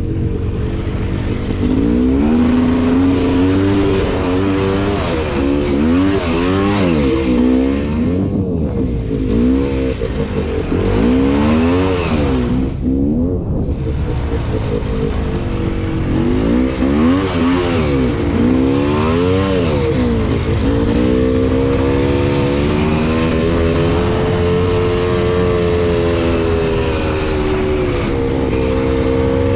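Polaris Scrambler 400 two-stroke ATV engine being ridden on a trail, revving up and dropping back over and over, then holding a steadier throttle for the last several seconds.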